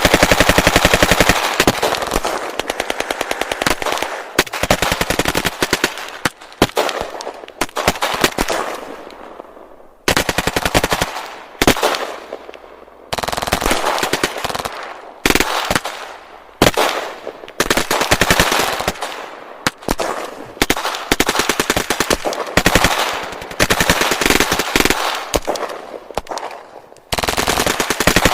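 Gunfight sound effects: bursts of rapid automatic gunfire with single shots mixed in, the bursts stopping and starting again every few seconds, with echoing tails between them.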